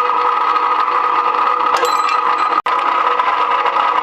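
Chinese GQ-series rebar cutting machine's electric motor and gear drive running steadily, with no bar being cut. The sound drops out for an instant about two and a half seconds in.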